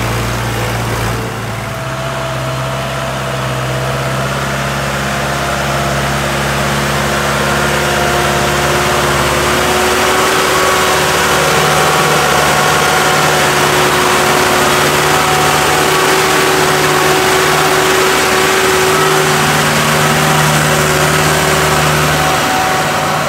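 Farm tractors' diesel engines running steadily under load while driving through mud, in a run of separate clips; the engine note changes about a second in and again near ten seconds.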